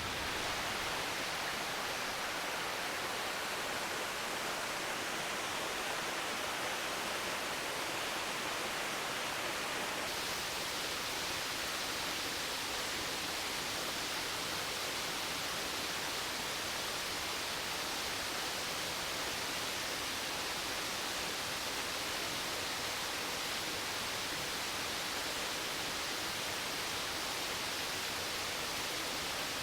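Steady rush of a waterfall: falling water giving an even hiss, its tone shifting slightly about ten seconds in.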